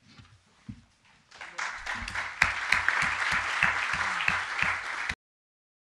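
Audience applauding, starting about a second and a half in as a dense patter of many claps, then cut off abruptly near the end.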